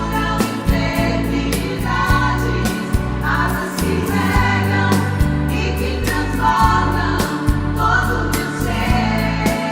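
Gospel song with choir-like sung vocals in long held phrases over a band with a steady drum beat.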